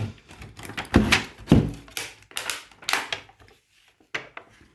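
A series of knocks and clunks, the two loudest about a second and a second and a half in, followed by lighter taps: an electric scooter battery pack being handled and moved about on a hard surface.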